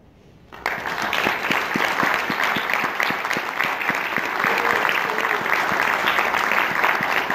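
Audience applause starting suddenly about half a second in, then going on as loud, steady, dense clapping.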